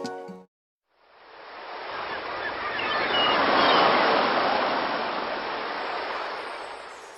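Sea surf: a wave washing in, rising to a peak in the middle and fading away. A few seconds of music end just before it.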